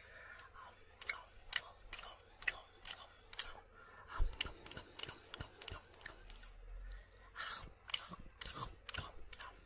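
Close-miked mouth sounds: sharp tongue clicks and dry mouth pops in quick, irregular succession, about two a second, with one louder dull thump about four seconds in.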